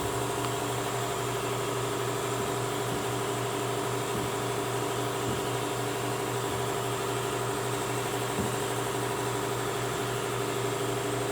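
Steady machine hum of a motor running, with a low drone and a few fixed tones, broken by a few faint knocks.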